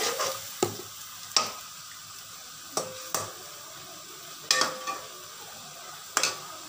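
Chicken pieces sizzling in oil in a metal karahi, with a metal spoon stirring and clinking sharply against the pan about six times.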